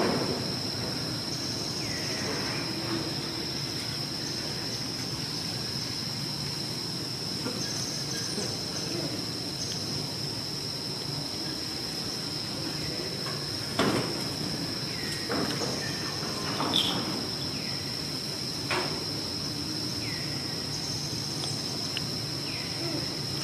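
Steady high-pitched drone of insects, with a few sharp knocks about two-thirds of the way through and some faint short chirps.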